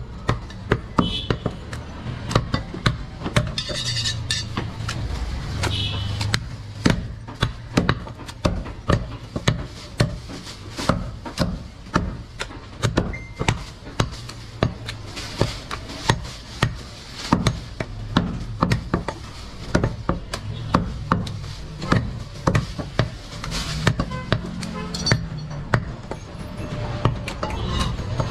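A butcher's cleaver chopping goat meat on a wooden chopping block: a long, uneven run of sharp chops, about two a second.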